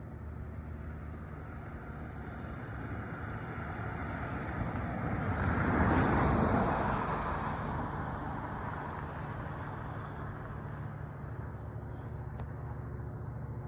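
Airplane passing overhead: a broad rushing engine noise swells to its loudest about six seconds in, then slowly fades.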